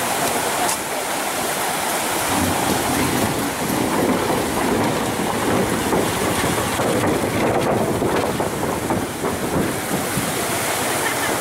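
Fast river water rushing over rocks beneath a bridge: a steady, loud wash of white-water noise.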